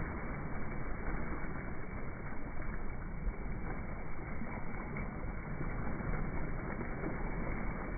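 Water splashing and rushing against a boat's side as a hooked blue marlin thrashes at the surface, over a low steady rumble.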